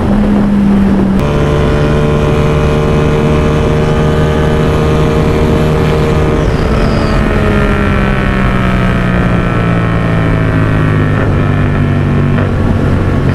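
Motorcycle engine running under way with a steady note. Its pitch drops suddenly about a second in, eases lower over the next several seconds and steps down again twice near the end.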